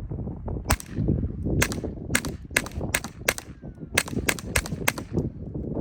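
Suppressed Glock G44 .22LR pistol firing about ten subsonic rounds in a quick, uneven string, each shot a short, muffled crack with the slide cycling.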